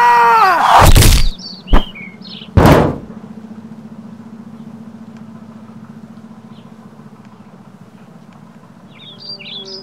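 Sound effects for an animated logo. A high cry falls in pitch and is cut off by three heavy thuds within the first three seconds, followed by a steady low hum, with a few quick bird-like chirps near the end.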